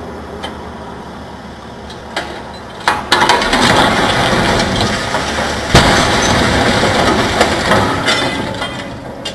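A steel-clad industrial building collapsing in demolition. After a steady low hum, a sharp crack about three seconds in sets off several seconds of loud crashing and breaking. The heaviest impact comes near six seconds, then the noise fades away.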